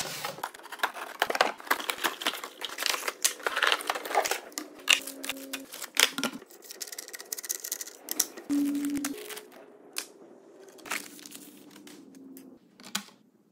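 Cardboard box and packaging being opened: tearing and crinkling, dense at first. Then quieter handling of the chainsaw's plastic body, guide bar and chain on a wooden workbench, with scattered clicks and knocks.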